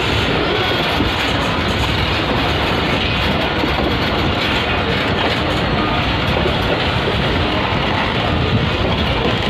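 Moving passenger train heard from an open coach doorway: a steady running noise of the coaches on the rails.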